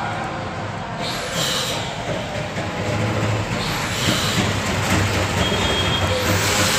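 Steady background noise with a low hum, getting a little louder near the end.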